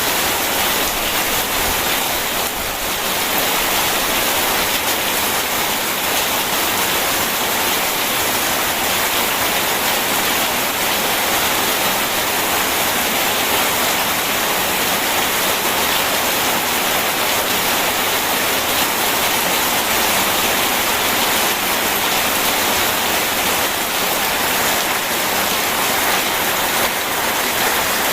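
Steady rain mixed with rushing river water: an even, unbroken hiss with no thunder.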